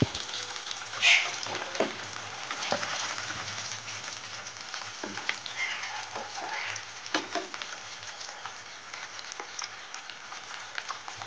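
Food pieces deep-frying in hot oil in a metal pan, with a steady sizzle throughout. A slotted metal skimmer stirring them gives a few short clinks against the pan, the loudest about a second in.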